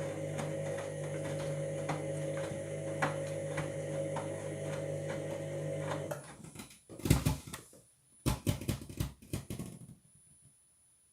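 Washing machine motor turning the drum with a steady hum and even ticks about twice a second, stopping abruptly about six seconds in, followed by a few loud knocks. The owner takes the noise for a sign of worn drum bearings.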